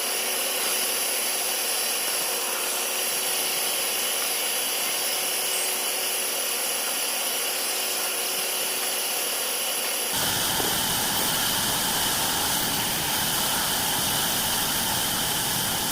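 Band saw running and sawing through wood, a steady machine noise with a few held tones. About ten seconds in the sound changes suddenly, becoming fuller and deeper.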